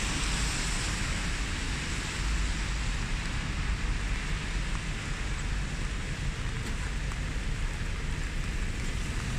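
Steady hiss of rain on a wet city street, over a low rumble of distant traffic.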